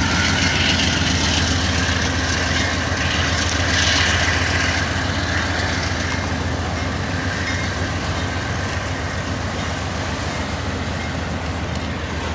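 Union Pacific GE C41-8W diesel locomotive's 16-cylinder engine running with a steady low drone as it pulls a freight train away, over the hiss of autorack cars rolling on the rails. It is loudest in the first few seconds and then eases a little.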